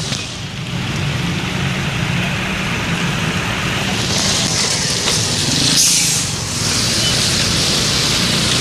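A bus engine running amid roadway noise, with a loud hiss of released air, as from air brakes, starting about four seconds in and lasting about two and a half seconds. No horn is heard.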